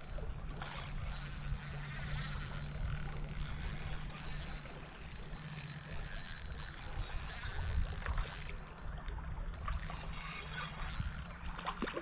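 Spinning reel being wound while a fish is played on the rod, with a run of fine ticks near the end. Wind rumbles steadily on the microphone underneath.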